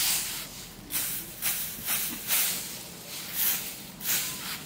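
Dry straw rustling and swishing as it is raked with a bamboo-handled tool, in repeated strokes of about two a second.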